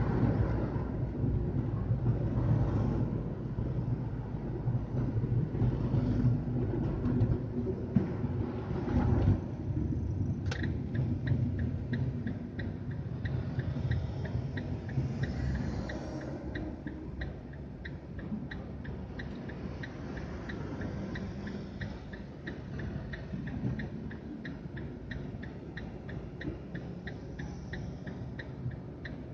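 Road and engine rumble inside a car's cabin in slow traffic, louder for the first nine seconds or so and then quieter. About a third of the way in a click is followed by the turn-signal indicator ticking steadily.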